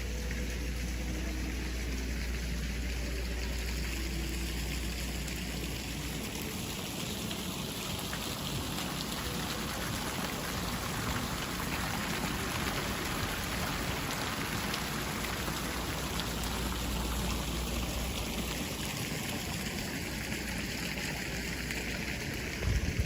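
A person urinating: a steady stream of urine splashing onto a hard surface, growing brighter in the middle and easing off toward the end.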